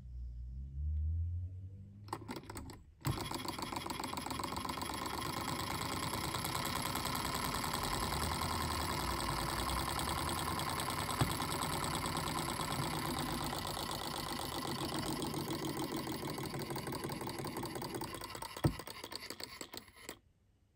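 Small gas-fired Stirling engine running after a flick of its flywheel about three seconds in: a fast, even mechanical clatter that tails off and stops near the end, as the burner runs out of gas.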